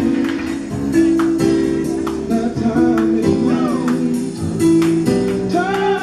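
Music with a steady beat and singing over sustained instrumental notes.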